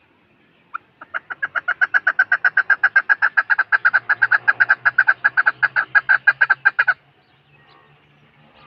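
Chukar partridge calling: a rapid run of short, repeated notes, about seven a second, that builds up in loudness over the first second, keeps going evenly for several seconds and then stops abruptly.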